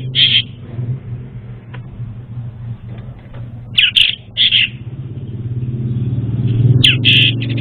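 Orange-headed thrush calling in short, high, clipped notes that come in clusters of two or three, some sweeping quickly downward, over a steady low hum.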